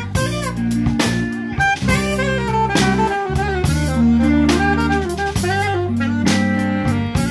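Live band playing a jazz-blues groove: a saxophone plays a melodic solo over electric bass guitar and a drum kit with regular cymbal strikes.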